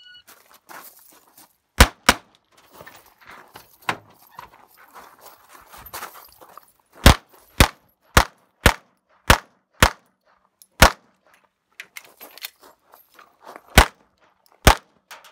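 Competition shot timer beeps once, then a pistol fires eleven shots in strings: a quick pair about two seconds in, six shots about half a second apart around the middle, a single shot, then two more near the end.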